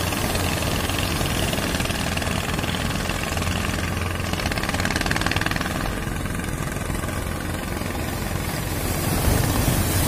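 Fishing-boat engines running steadily, a low pulsing drone, over the wash of breaking surf.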